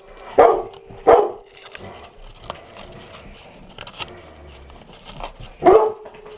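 Short, loud dog-like barks: two close together about half a second and a second in, a third near the end, with faint small clicks in between.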